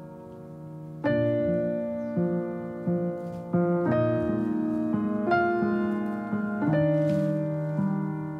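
Background piano music: held chords, with a new note or chord struck about once a second after a quieter first second.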